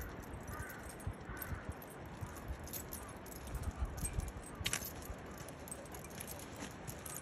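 Heavy metal chain dog leash jangling and clinking as it swings and bunches in the hand, with scattered sharp clinks, one louder about halfway through.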